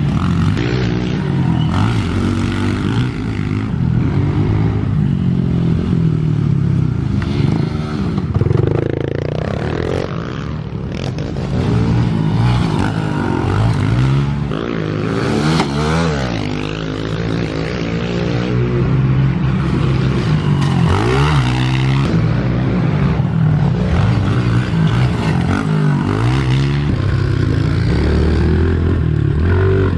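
Four-stroke pit bike engine being ridden hard on a dirt track, its pitch rising and falling over and over as the throttle is opened and shut and the gears change.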